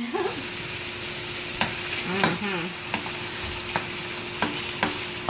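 Diced chicken thighs and minced garlic sizzling steadily in hot oil in a pan, stirred with a wooden spoon that knocks and scrapes against the pan about once a second.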